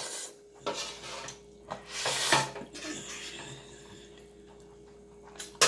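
A metal spoon scraping and knocking against a metal baking sheet as noodles are pushed together, a few short scrapes in the first three seconds with the strongest about two seconds in.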